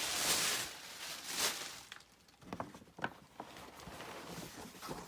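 Paper and packaging rustling as a handbag is unpacked from its shopping bag, then a few light clicks and taps as it is handled.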